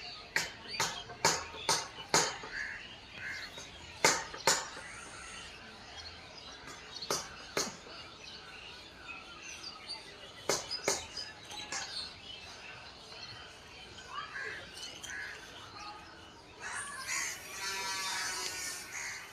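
Birds chirping and calling, with short sharp loud calls, often in pairs, through the first half. A dense buzzing sound sets in near the end.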